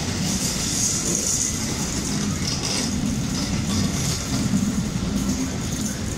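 Railway carriages, including Pullman coaches, rolling slowly past close by: a steady rumble of wheels and bogies with a hiss over it.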